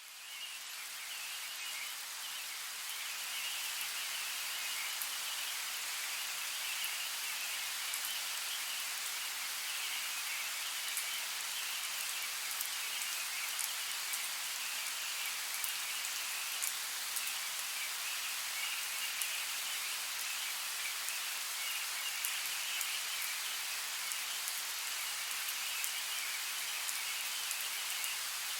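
Steady forest rainfall, a dense patter of drops with fine individual ticks, fading in over the first few seconds. A steady high chirring runs underneath it.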